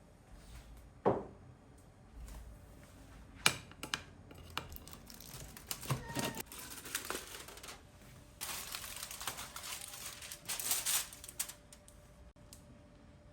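Handling noises: a few sharp knocks and clicks, then about three seconds of crinkly rustling.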